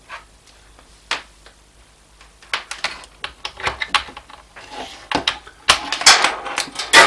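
Irregular clicks and clatter of small hard objects being handled on a workbench, sparse at first and busier and louder over the last couple of seconds.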